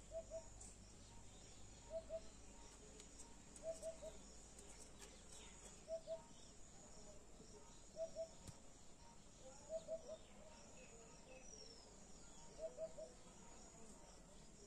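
A bird calling short, clean, low hooting notes in twos and threes, repeated about every two seconds, over the steady high drone of crickets.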